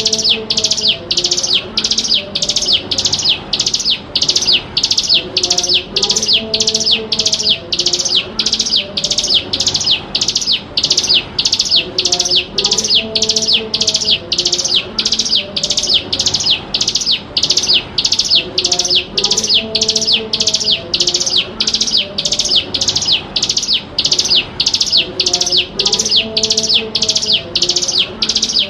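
Ciblek gunung, a mountain prinia, calling: an unbroken run of sharp, high chirps at about two a second, kept up without a pause. This is the bird's insistent repeated call used as a lure and as a model song for young birds.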